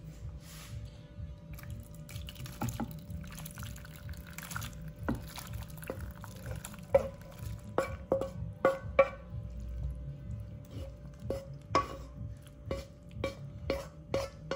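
Thick coconut-milk vegetable curry pouring and plopping from a pan into a glass baking dish. From about five seconds in, a run of sharp clinks, roughly two a second, as the pan and utensils knock against the dish.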